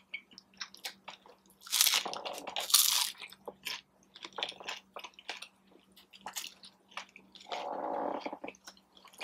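A person biting into and chewing a crunchy taco in a Hint of Lime hard corn taco shell: loud crunches about two and three seconds in, then quieter chewing with wet mouth clicks and a short muffled sound near the end. The shell seems kind of stale to the eater, giving a little chew along with the crunch.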